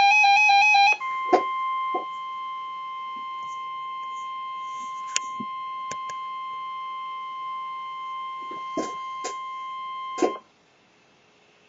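NOAA Weather Radio warning alarm: one steady high 1050 Hz tone held for about nine seconds, with a few faint clicks of static, that cuts off suddenly. It follows the last second of a loud warbling digital data burst (the SAME header), which is the signal that an alert is coming.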